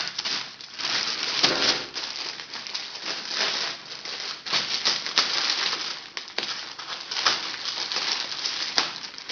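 Plastic poly mailer bag crinkling and rustling as it is handled and cut open with scissors, in an irregular run of crackles and small clicks.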